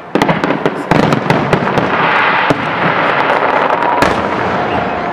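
Aerial fireworks shells bursting: many sharp bangs in quick succession that run together into a continuous din, with one more loud bang about four seconds in.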